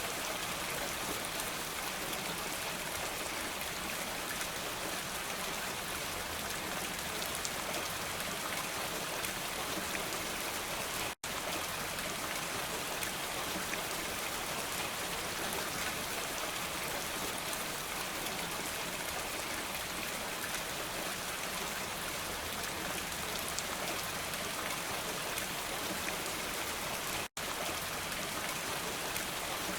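Steady rain falling, an even hiss of drops that drops out to silence for an instant twice, about 11 and 27 seconds in.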